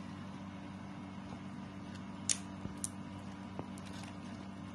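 Crispy fried egg chips cracking as they are broken by hand: a couple of sharp, brittle snaps a little past the middle and a fainter one after, over a steady low hum.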